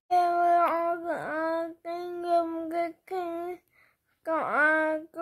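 A child singing on a steady held note in short phrases with brief breaks, the pitch swooping quickly down and back a few times.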